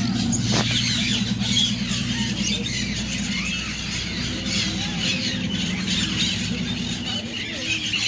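Many aviary birds, mostly parrots, calling at once: a dense chatter of overlapping squawks and squeals, over a steady low hum.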